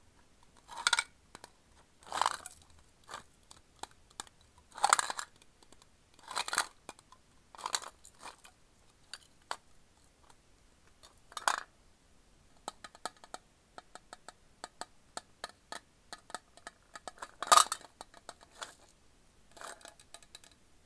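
Hard candy drops rattling and sliding inside a Sakuma's Drops metal tin as it is tipped and turned in the hands, in short separate bursts. There is a run of quick light clicks in the middle stretch.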